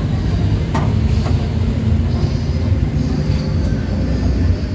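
Suzuki DA17's engine running with a steady low rumble, with a few faint clicks over it.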